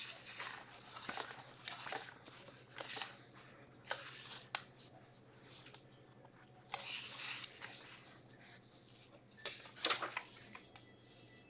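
Irregular rustling and crinkling handling noise in short bursts, the loudest just before the end, over a faint steady low hum.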